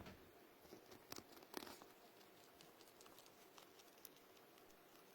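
Faint chewing of a small pet eating: a few crisp crunches near the start and about one and a half seconds in, then quieter scattered nibbling clicks.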